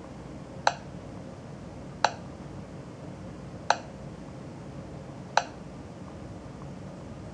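Four short, sharp clicks, one with each press of a menu button on a Garmin 2699 LMT-HD GPS touchscreen, spaced unevenly over a low steady background hiss.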